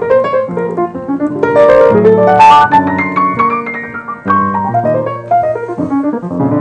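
Yamaha piano played solo in a jazz style: runs of single notes over sustained chords, with a brief soft hiss about two and a half seconds in.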